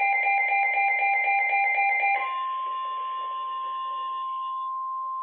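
A rapidly pulsing electronic tone, several pulses a second, cuts off about two seconds in. A single steady tone near 1 kHz replaces it: the NOAA Weather Radio 1050 Hz warning alarm tone that precedes a warning broadcast.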